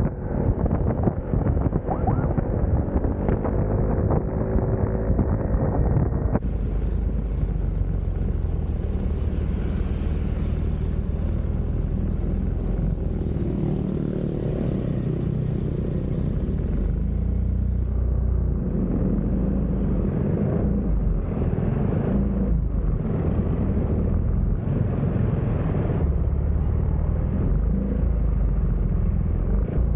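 Yamaha XMAX 300 scooter's single-cylinder engine running steadily under way, heard as a continuous low rumble mixed with wind noise on the microphone. The sound shifts abruptly about six seconds in and again around eighteen seconds.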